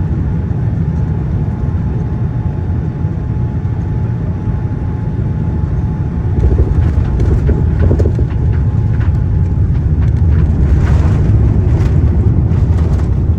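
Boeing 787-9 airliner landing: a loud, steady low rumble. About six seconds in it is joined by scattered knocks and rattles, and it grows a little louder around ten seconds in.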